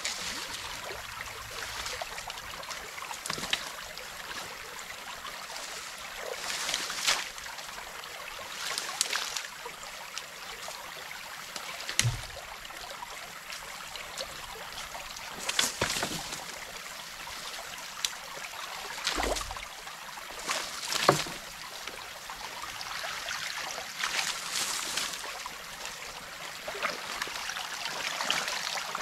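Creek water running and trickling through a beaver dam, with irregular splashes and sloshes every few seconds as mud and sticks are pulled out of the dam by hand.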